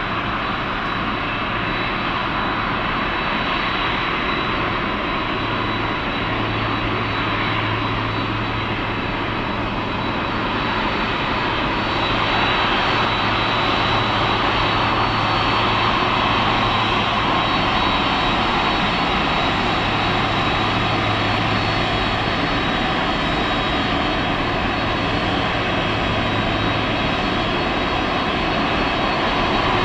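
Boeing 767-300ER's twin GE CF6 turbofans at taxi power: a steady jet whine over a broad rushing hiss, growing somewhat louder about twelve seconds in as the airliner draws close.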